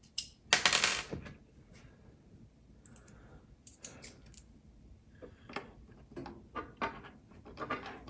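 Scattered light clicks and taps, with a brief scrape about half a second in, from a screwdriver and small parts being handled inside an opened Mac mini while its SSD is being removed.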